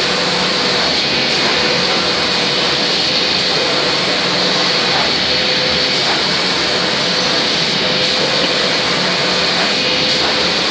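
FXF250 automatic spray-painting machine spraying PU paint onto a wood door: a loud, steady hiss from the spray guns and booth with a faint steady hum under it. The highest part of the hiss drops out briefly about every two seconds.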